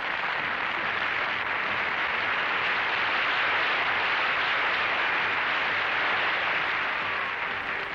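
Studio audience applauding steadily, swelling a little midway and easing slightly near the end.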